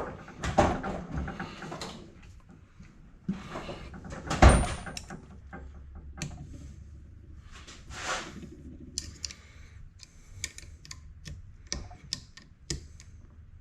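Hand tools and the metal parts of a GM Type II Saginaw power steering pump clinking and knocking while the pump's back-cover snap ring is worked out with a C-clamp. The loudest sound is one sharp metal knock about four and a half seconds in, which rings briefly, and a run of light clicks follows near the end.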